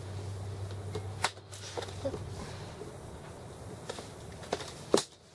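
Scattered light clicks and taps from an ice-fishing rod and reel being handled, with a sharper tap near the end. A low steady hum underneath stops about two seconds in.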